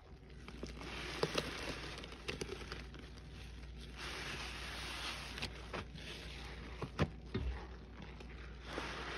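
Gloved hands squeezing and wringing a sponge soaked in foamy lime Ajax cleaning solution in a metal bowl. Wet squelching and sloshing comes in surges with a fizzing hiss of foam, broken by a few sharp clicks, the loudest about seven seconds in.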